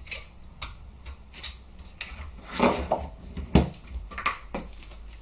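Irregular small clicks and clinks of a small Phillips screwdriver, screws and nuts being worked and handled on an airsoft G36's plastic and metal parts, with the loudest knocks near the middle.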